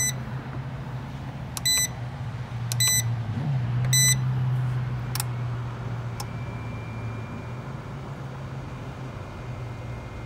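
DeWALT DXAEC80 battery charger's control panel beeping as its buttons are pressed: four short beeps in the first four seconds, then two faint ticks. A steady low hum runs underneath.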